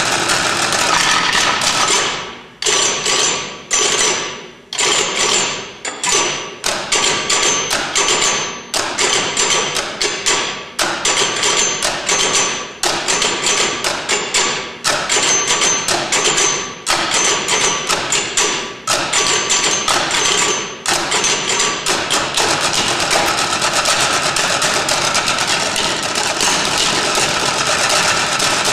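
Percussion ensemble striking stools with sticks in a fast, dense pattern of sharp hits. It breaks off in short gaps every second or two, then runs on without breaks for the last several seconds.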